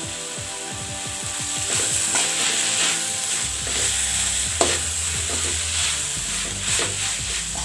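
Vegetables sizzling in a hot metal kadai while a slotted metal ladle stirs and tosses them, with a few short scrapes of metal on metal against the pan.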